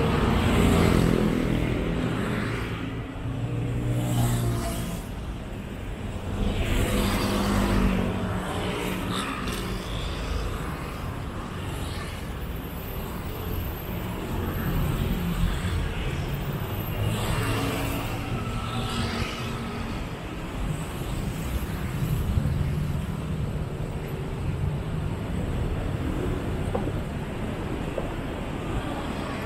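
City street traffic: a steady rumble of engines with several vehicles passing close by, loudest near the start and around seven to eight seconds in.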